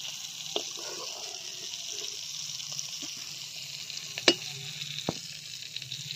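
Hot oil sizzling in a metal wok (karahi) as the fried tomato pieces are lifted out with a metal spatula, with a few sharp clicks of the spatula, the loudest about four seconds in.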